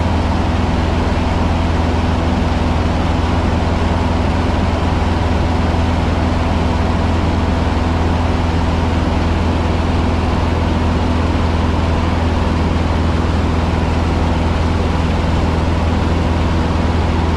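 Cessna 150's four-cylinder air-cooled piston engine and propeller running steadily, heard inside the cockpit as a loud, even drone with a deep hum.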